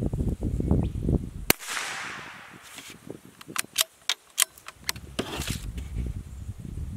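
A single shot from a CZ455 .22LR bolt-action rifle with a bare muzzle (no brake or sleeve) about a second and a half in, ringing out briefly, followed by a quick run of metallic clicks as the bolt is worked to eject the case and chamber the next round. Wind rumbles on the microphone at the start and end.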